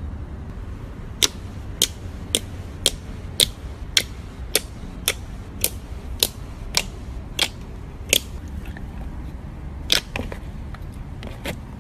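Thick slime popping and clicking as fingers poke into it and pull out, about two sharp pops a second, then a few more scattered ones near the end.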